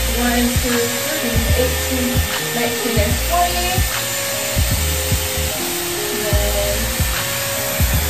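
Background music with a beat and singing over the steady rushing airflow of a Dyson Airwrap blowing through its curling barrel. The airflow cuts off suddenly at the very end.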